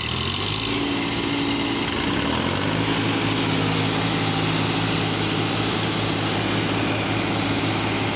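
Tractor diesel engine running steadily; its speed changes about two to three seconds in, then holds at a steady pitch.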